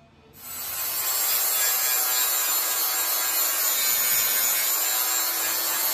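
Electric angle grinder grinding a steel bracket: the wheel bites in about half a second in and then grinds steadily, with a thin high whine over the grinding noise.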